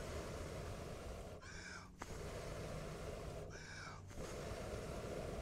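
A man blowing hard on a wood fire to make it catch: three long blows, each followed by a quick gasping breath in.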